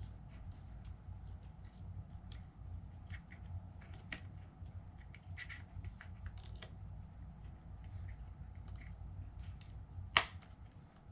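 Small clicks and taps of plastic parts and a wire connector being handled inside an opened drone remote controller, with one sharper click about ten seconds in, over a low steady hum.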